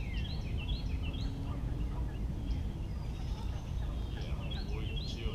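A bird calling: a run of short, quick falling notes, repeated near the end, over a steady low rumble.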